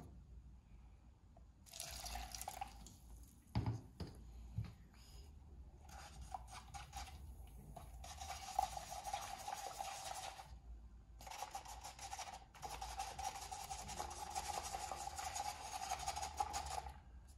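A plastic spoon stirs a wet paste of toothpaste, baking soda and warm water in a paper cup, scraping and swishing steadily in long stretches. A few knocks come about four seconds in.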